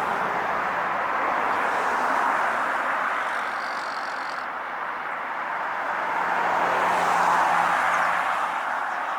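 Rushing noise of a passing vehicle, easing off in the middle and swelling again about seven seconds in.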